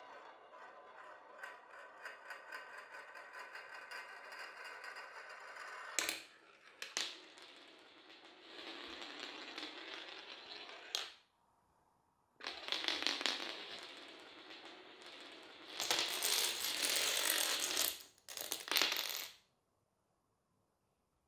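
A marble rolling round a funnel bowl, a steady whirr with fast ticks, then sharp clicks, and toy dominoes toppling in a chain, clattering in long runs. The clatter cuts off about nineteen seconds in.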